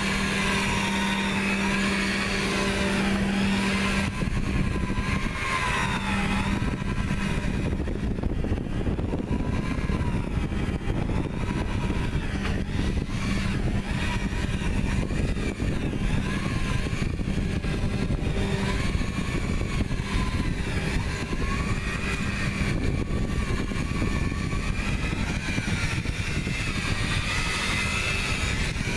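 Electric rotary buffer running with a pad and cutting compound against a sailboat's fiberglass hull, compounding oxidized gelcoat: a steady motor hum with a whine that wavers up and down in pitch.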